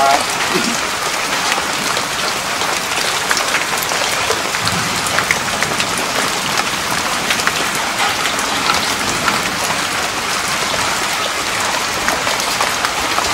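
Steady, even pattering of water drops, with many fine ticks.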